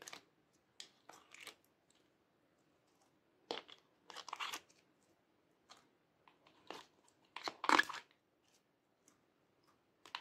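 Thick slime being pulled by hand out of a plastic ice cube tray and pressed into a glass dish: about ten short, irregular sticky squelches with quiet gaps between them, the loudest about eight seconds in.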